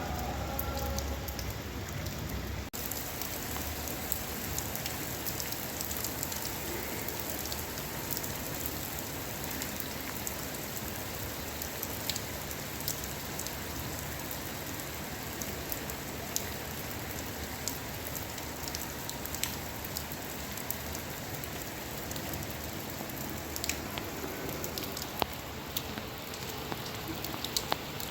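Steady rain, an even hiss with many separate drops ticking sharply on a hard surface. The sound cuts out for an instant about three seconds in.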